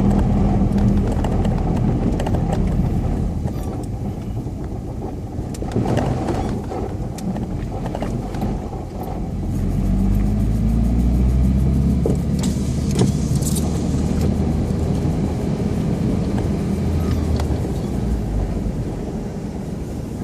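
UAZ Patriot off-road vehicle driving, its engine running and changing pitch, picking up again about halfway through. Scattered knocks and clicks sound over it, most around the middle.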